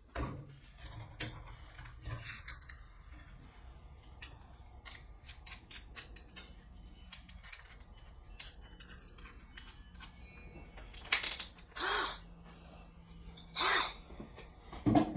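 Small handling sounds at a workbench: scattered light clicks and taps, with a few short, louder scraping or rustling noises near the end.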